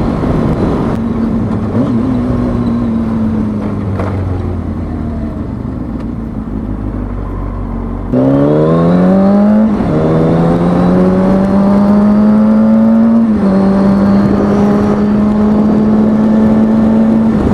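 2003 Kawasaki ZX-6R 636 inline-four engine with wind rushing past: it cruises at low revs, easing off for about eight seconds, then is opened up and revs climb steeply, with an upshift a second and a half later, another upshift a few seconds after that, and a steady cruise to the end.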